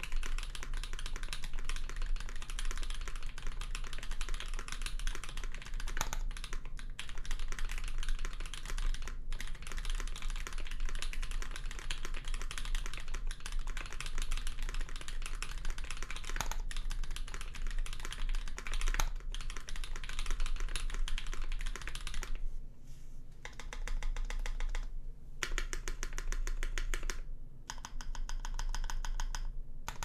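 Mechanical keyboard typing: an Alpine65 65% board with lubed Creamsicle linear switches on an FR4 plate, no sound dampening, and GMK keycaps, clacking in fast continuous typing. For the last several seconds it changes to short runs of rapid, evenly spaced taps on single keys.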